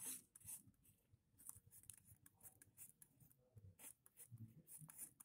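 Faint scratching of a pencil lead drawing lines on paper, in short on-and-off strokes.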